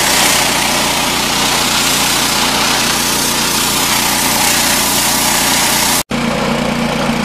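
Gas-engine pressure washer running steadily while its wand's water jet hisses against the asphalt road. About six seconds in, the sound cuts out for an instant and comes back with the engine still running and much less spray hiss.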